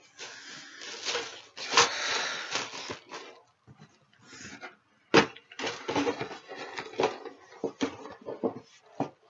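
Rustling and crinkling of paper and plastic as a model kit's contents and instruction sheet are handled, a dense rustle in the first three seconds, then a string of sharp clicks and crackles.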